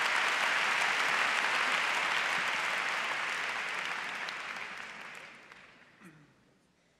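Large audience applauding, a dense clapping that thins out and dies away between about four and six and a half seconds in.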